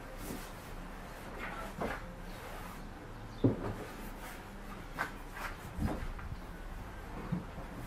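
Walnut credenza being turned over by hand, its wooden case knocking and bumping a few times. The loudest knock comes about three and a half seconds in.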